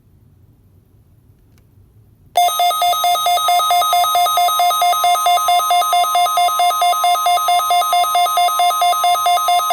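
Midland WR-120EZ weather radio's alert alarm going off for the NOAA Weather Radio required weekly test: a loud electronic warble that switches rapidly between two tones, about four times a second. It starts suddenly about two and a half seconds in.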